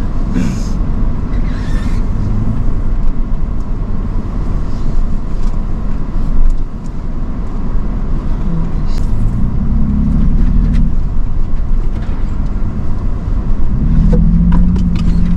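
Vehicle engine pulling at low speed over rough trail, its pitch rising twice as the driver gives it more throttle, with scattered clicks and knocks from the body and suspension over the bumps.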